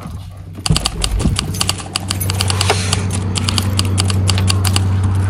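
Keys jangling in a run of quick, irregular light clicks that fade out about four seconds in, over the steady low hum of a running vehicle engine that grows a little louder.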